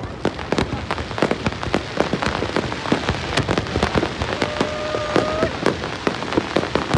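Fireworks crackling and popping in a dense, rapid stream of sharp cracks with heavier bangs mixed in, like rain on a surface. About halfway through a held tone sounds for about a second.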